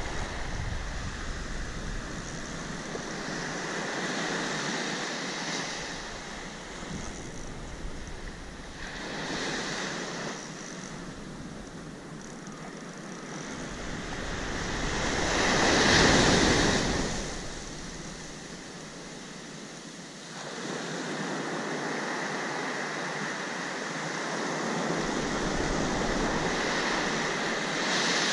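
Ocean surf breaking and washing up the beach in repeated swells of hiss, the loudest wave about halfway through. Wind rumbles on the microphone at times.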